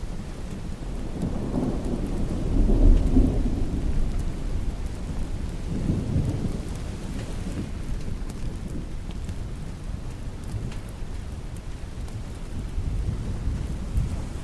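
Thunder rumbling over steady rain. A long, deep roll peaks about three seconds in, a smaller roll follows around six seconds, and a third swells near the end.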